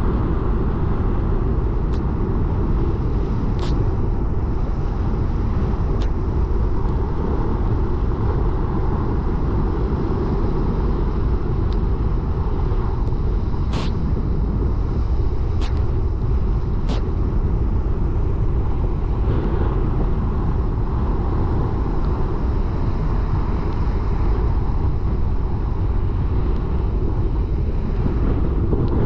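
Car driving: steady low road and engine rumble, with a few faint, brief clicks now and then.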